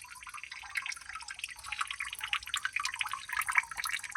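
Water dripping after rain: many quick, irregular drops ticking without a break.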